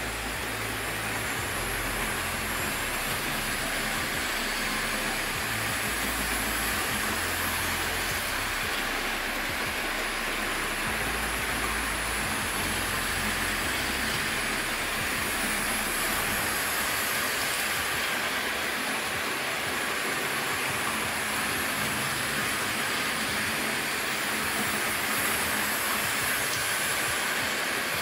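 Electric 00-gauge model trains running on the track: a steady running noise of the motors and wheels on the rails.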